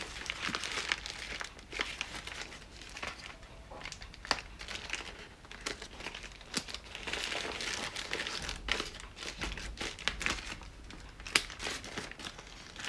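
Small plastic packet crinkling and rustling as it is handled and opened by hand, with scattered sharp clicks.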